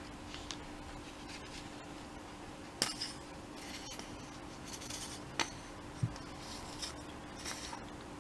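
Quiet handling of paper and craft supplies on a table: a few light clicks and taps and several short papery rustles, over a faint steady hum.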